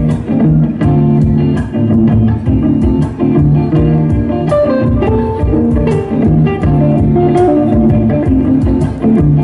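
Live band playing an instrumental guitar passage over a steady beat, with no singing.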